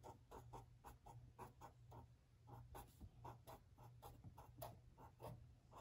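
Faint scratching of a marker tip on notebook paper as small X's are drawn in quick strokes, about four a second.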